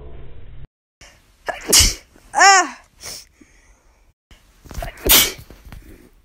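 A person sneezing twice, about three seconds apart. The first sneeze is followed by a loud voiced cry that rises and falls in pitch.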